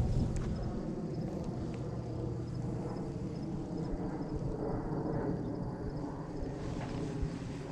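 Baitcasting reel being cranked steadily to retrieve a cast lure.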